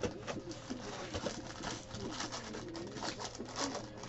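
Foil trading-card pack crinkling and tearing open in the hands, a run of rapid crackles. Under it runs a low, wavering pitched sound.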